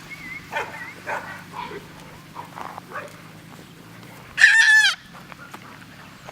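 Golden retriever puppies whimpering with short, faint high cries, then one loud, high-pitched yelp about four and a half seconds in.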